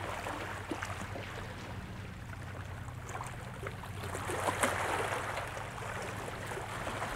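Waterside ambience: wind and water lapping at the shore, under a steady low hum, with a few faint ticks.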